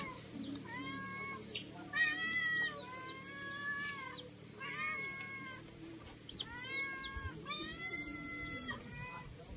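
A cat meowing over and over, a string of drawn-out meows, each rising and then falling in pitch, about one a second.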